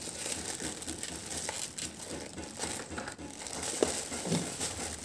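Clear plastic packaging bag crinkling and rustling as hands work inside it, with a sharp click nearly four seconds in.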